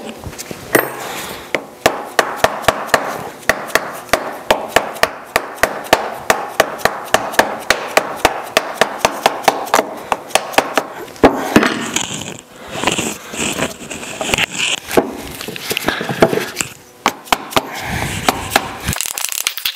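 Red soft-faced mallet tapping a ball bearing into its bore in the lathe's gearbox case: quick, even taps about three a second. A rustling stretch interrupts them in the middle, and a few more taps follow near the end.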